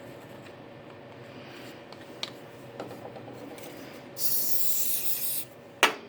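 A few light handling ticks, then an aerosol spray hissing in one burst of just over a second, about four seconds in, followed by a single sharp knock near the end.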